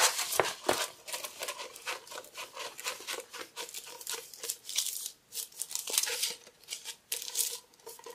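Poured-glue diamond painting canvas and its plastic cover film crinkling and crackling in irregular bursts as it is rolled up tightly by hand the other way to flatten its curl.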